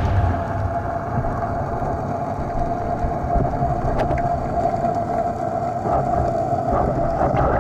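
Underwater drone of a boat engine heard through the water: a steady hum over a low rumble, with a couple of faint sharp clicks.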